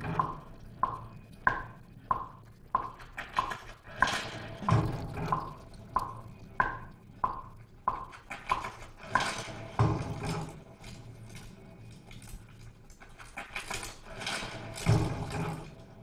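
A looped beat built from sampled sports sounds: footstep, skateboard and basketball samples. Short footstep ticks come about twice a second through the first half, and a heavier impact with a low thud repeats about every five seconds, three times.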